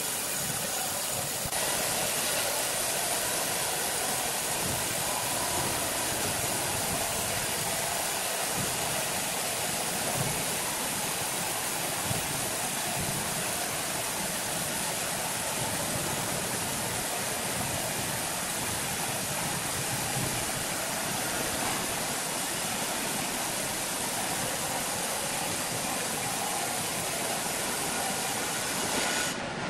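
Large horizontal band sawmill ripping lengthwise through a giant log: the blade in the wood gives a steady hiss over the running machine. The sound changes abruptly just before the end.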